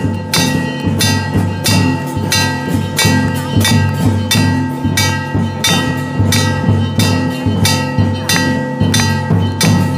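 Aarti music: bell and percussion strikes in an even rhythm, about two to three a second, over a steady ringing tone.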